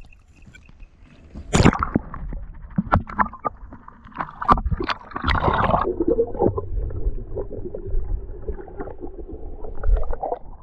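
Water splashing and sloshing at the waterline by a kayak, with a loud splash about a second and a half in and scattered sharp splashes after it. About halfway through, the microphone goes underwater and the sound turns muffled and gurgling.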